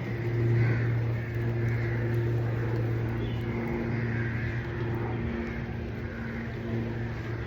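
A steady low mechanical hum, with two fainter steady tones above it.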